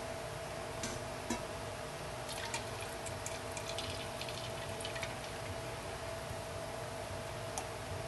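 Thick raw cold-process soap batter pouring in a steady stream from one stainless steel stockpot into another, with a few faint clicks of metal.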